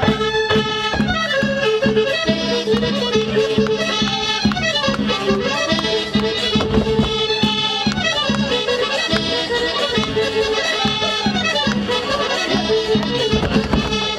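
Polish folk polka played on accordion, with a steady, even beat and a melody that falls in runs every few seconds.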